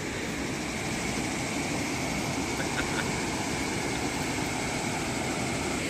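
Waterfall rushing across the gorge: a steady, even roar of falling water with no break, and a faint steady high tone above it.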